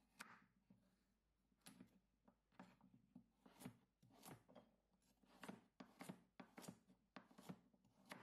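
Kitchen knife chopping a carrot on a cutting board: a series of sharp, uneven knocks, roughly two a second.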